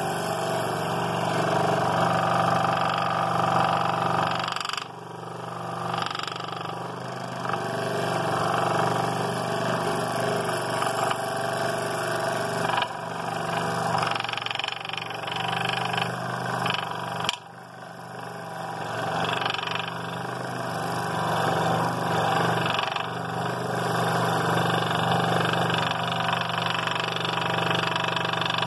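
Scroll saw running with a No. 7 reverse-tooth blade, cutting through a thick cedar block: a steady motor hum under the buzz of the blade chewing through the wood. The sound dips briefly twice, about five seconds in and again past the middle, then picks back up.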